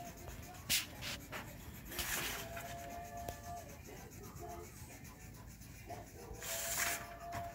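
Wax crayon rubbing across paper in short back-and-forth strokes, with louder scratchy strokes about two seconds in and again near the end.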